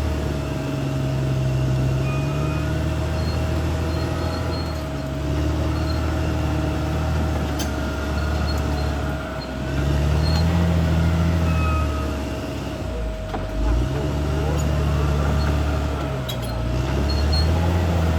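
CAT D6R XL bulldozer's diesel engine working under changing load, its pitch rising and dropping every few seconds, over a steady whine. A few sharp clanks come through.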